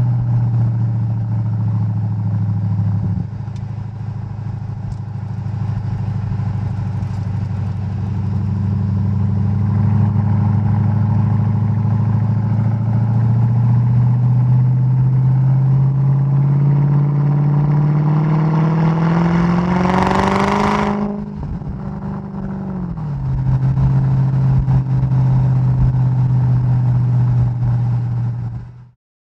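Mercedes-Benz E 55 AMG W211's supercharged 5.4-litre V8, heard from outside the car: it runs steadily, then pulls in a long acceleration with its note rising. At the top a brief loud noisy burst comes, and the note falls away as it comes off the throttle and settles back to steady running before cutting off suddenly near the end.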